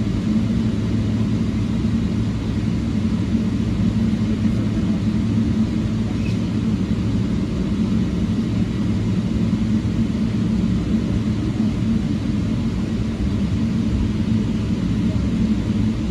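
Steady low rumble inside a Boeing 777 airliner's cabin as it stands at the gate.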